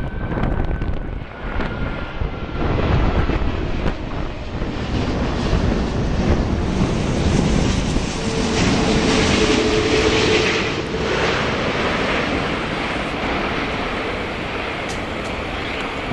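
Jet noise from the Airbus A380 prototype's four Rolls-Royce Trent 900 turbofans: a steady rush with a faint whine. It grows loudest about eight to eleven seconds in, with a steady hum, then eases off. Wind buffets the microphone.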